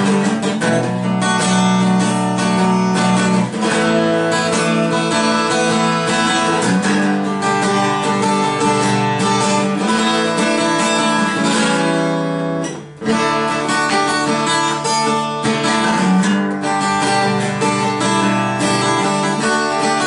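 Strimberg JS 02C jumbo acoustic guitar strummed unplugged, chords ringing continuously with a brief break a little past the middle. Strung with light 009 strings, its tone is somewhat bright but soft.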